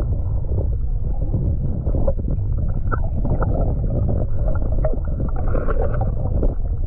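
Muffled underwater rumble picked up by a submerged GoPro: dull water movement and handling noise against the camera, with scattered small knocks and clicks and nothing bright or high.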